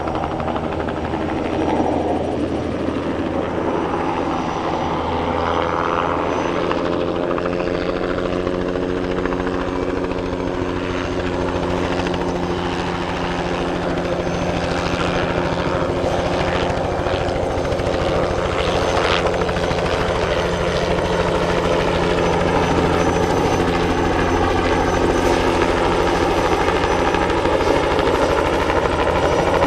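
Bell 206B-3 JetRanger III helicopter in flight during crop spraying: the beat of its two-blade main rotor with the whine of its turbine engine. The pitch bends up and down as the aircraft moves past and turns.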